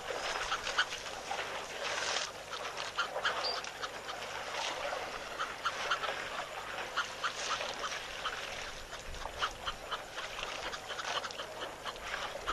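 Waterfowl (ducks and geese) calling: many short calls overlapping in a dense, continuous chatter.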